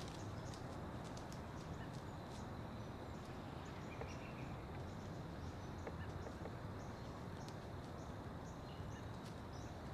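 Outdoor field ambience: a low steady rumble with short faint high chirps repeating about twice a second.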